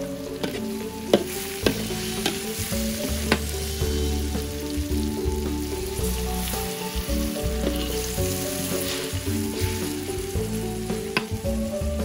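Stir-frying turmeric leaves and tempeh in a large aluminium wok: steady sizzling, with a metal spatula scraping and knocking against the wok several times in the first few seconds and once more near the end. About halfway through, water is poured into the hot wok.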